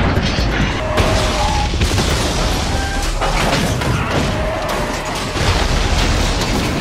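Film action soundtrack: heavy booms of a car crashing and exploding in a fireball, mixed with music.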